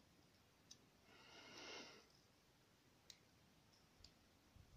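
Near silence: a faint breath about a second in, and a few faint small clicks from a lock cylinder being handled.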